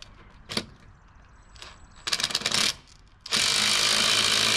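Cordless impact wrench tightening wheel lug nuts, run a little on each nut so their conical seats center: a short rattling burst a little after two seconds, then a longer, louder burst from just past three seconds. A sharp metallic click about half a second in.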